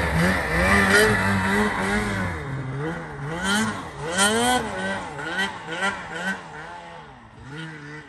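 Snowmobile engine revving up and down again and again as the rider works the throttle to get the sled through deep powder, getting quieter as the sled pulls away.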